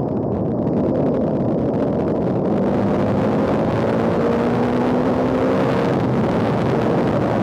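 Bajaj Dominar 400's single-cylinder engine running while under way, mixed with wind and road rush, its pitch rising slowly for a few seconds in the middle.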